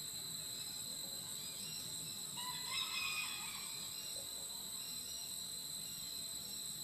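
Steady high-pitched insect chorus, with a single louder bird call lasting about a second, starting about two and a half seconds in.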